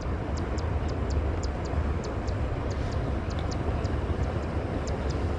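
A steady low rumble with short high chirps or ticks repeating a few times a second.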